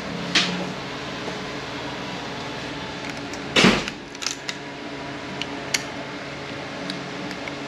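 Light metallic clicks and taps of a hand pick tool working at the valve body wiring connector of a 4F50N transaxle. The loudest is a short clatter about three and a half seconds in, followed by a few small ticks, over a steady low hum.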